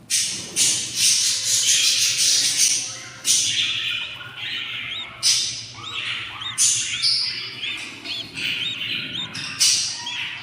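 Six-day-old budgerigar chicks begging for food: repeated raspy, hissing squawks, with a run of short, high chirps in the middle.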